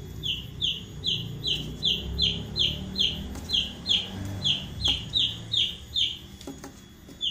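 A baby chicken peeping in distress while squeezed in a boa constrictor's coils: a steady run of short, high peeps, each falling in pitch, about three a second, that stops shortly before the end.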